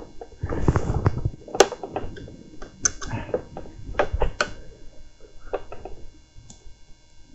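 Scattered sharp clicks and knocks, with some rustling, as hands handle a mobility scooter's throttle unit and wiring at the tiller.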